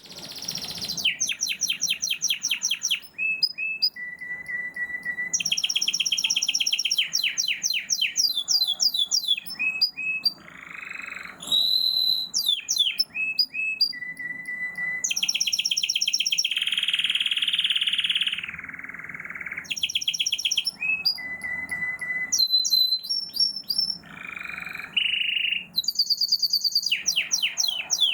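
European goldfinch and domestic canary singing: phrases of fast rattling trills, steady held whistles and quick chirps, with a long buzzy note a little past the middle.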